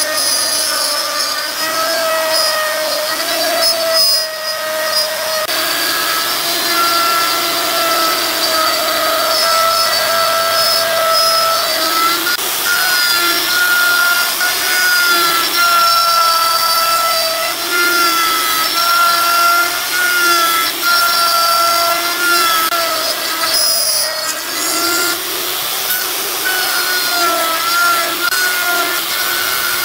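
Electric power tool running continuously on wood, its motor whine wavering slightly in pitch as the load changes, with brief dips about four seconds in and again near the end.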